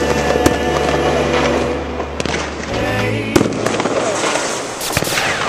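Close-proximity aerial fireworks bursting with several sharp bangs, over music.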